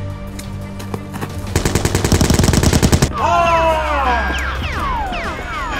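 A rapid burst of machine-gun fire lasting about a second and a half, followed by several overlapping falling whistle-like tones, over background music with a steady low drone.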